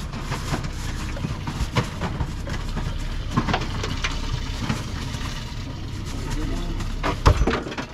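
Steady low rumble on a small fishing boat, with scattered light knocks and clicks of gear on the deck and one sharp, loud knock near the end.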